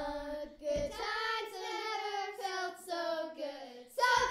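A child's voice singing long held notes, unaccompanied; a louder vocal burst that falls in pitch starts near the end.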